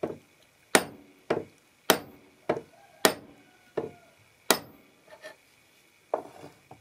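Plastic-faced hammer tapping the chrome vial tube of a Starrett 98-8 machinist level down into place: about eight sharp taps, roughly one every two-thirds of a second, then a few lighter taps near the end as the tube seats fully.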